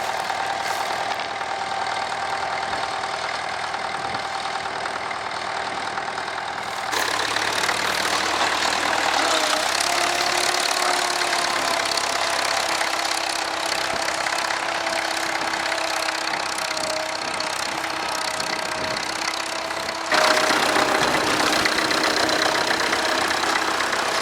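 Tractor engine running steadily. The sound changes abruptly and gets louder about seven seconds in and again near twenty seconds.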